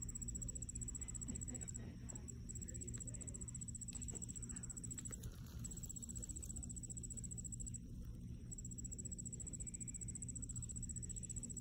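A singing insect trilling high and fast-pulsed in long runs of two to three seconds, broken by short pauses, over a steady low rumble.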